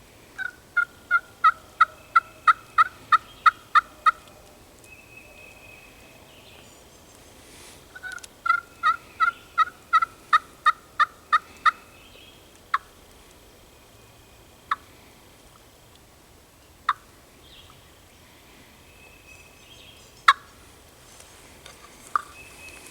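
Turkey yelps: two runs of about a dozen evenly spaced notes, about three a second, each run building in loudness. These are followed by several single sharp clucks spaced a couple of seconds apart.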